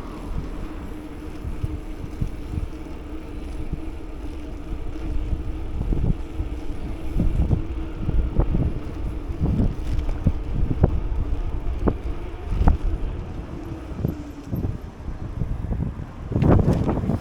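Wind buffeting the microphone of a moving scooter, over a steady engine hum and irregular thumps. A stronger gust comes near the end.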